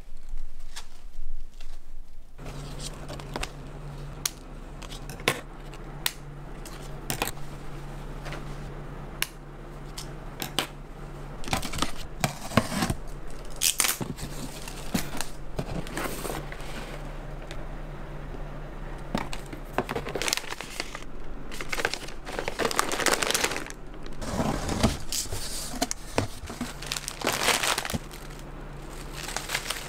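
Packaging or a bag crinkling and rustling as it is handled, with many small clicks and knocks. A steady low hum starts about two seconds in and runs underneath.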